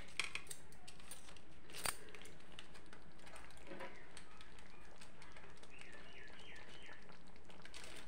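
Metal spatula scraping and clicking against an iron kadhai as potato pieces are stirred, over a steady sizzling hiss from the cooking pan; one sharp clack about two seconds in. A few faint high chirps around six seconds in.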